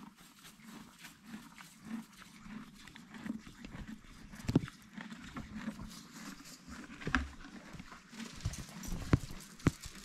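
A horse eating feed from a wooden trough, chewing with a steady rhythmic crunching. A few sharp knocks stand out: one about four and a half seconds in, one around seven seconds, and two close together near the end.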